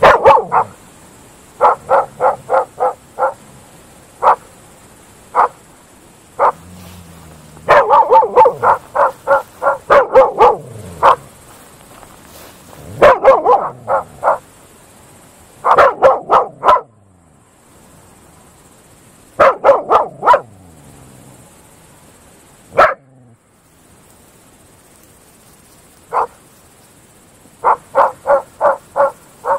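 Groenendael Belgian Shepherd dogs barking in volleys of short, sharp barks, often four or five in quick succession, with pauses of a second or several between volleys.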